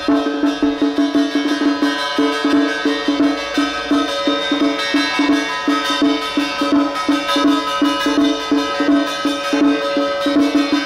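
Music with percussion: a quick, steady beat of strokes, about three or four a second, under held tones.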